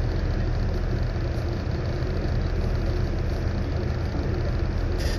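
Steady low mechanical hum and rumble at an even level, with a brief click near the end.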